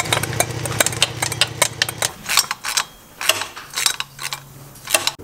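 Light metal clinks, taps and rattles as titanium exhaust pipes and fittings are handled and fitted on a motorcycle, with a low steady hum under the first two seconds and again near the end.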